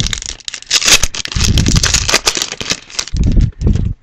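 Plastic wrapper of a 2011-12 Pinnacle hockey card pack being torn open and crinkled in the hands, a dense run of crackles with a few heavier low thuds from handling.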